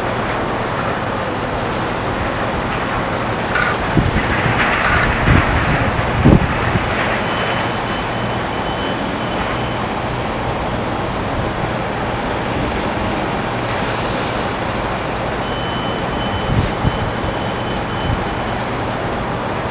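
Steady hum and rushing of airport apron machinery, with a few knocks about four to six seconds in and a couple more near the end.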